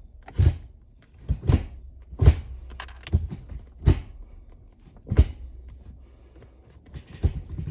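Hurst short-throw shifter being moved through the gears of a first-generation Cadillac CTS-V, a series of sharp clunks about one a second, some in quick pairs, over a low steady hum.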